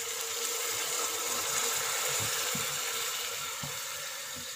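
Milk poured onto basmati rice frying in hot ghee in an aluminium pressure cooker, sizzling with a steady hiss. The hiss swells in the first two seconds and eases toward the end, with a few faint low knocks.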